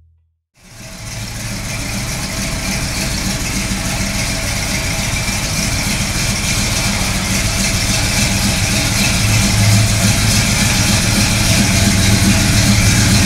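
Plymouth GTX's fuel-injected 440 V8 idling steadily. It fades in about half a second in.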